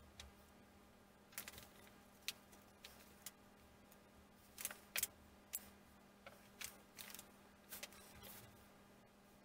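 Light, scattered clicks and taps of small wooden kit parts and a plastic glue bottle being handled and set down on a workbench, irregularly spaced, with the sharpest pair about five seconds in.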